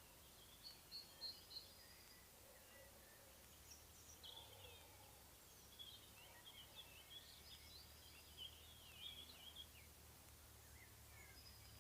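Faint birdsong: several small birds chirping and trilling in short scattered phrases, busiest in the middle, over a faint steady low hum.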